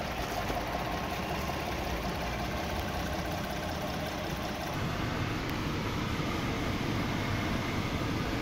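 2014 Hyundai Santa Fe's GDI engine idling steadily after a repair of its damaged bearings.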